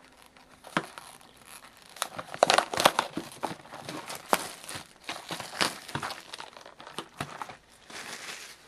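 Plastic shrink-wrap being torn and crumpled off a sealed trading card box: a run of irregular crinkles and snaps, busiest in the middle.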